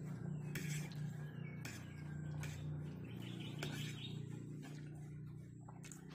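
Faint bird chirps over a steady low hum, with a few soft clicks of a metal fork against a plate as spaghetti is twirled.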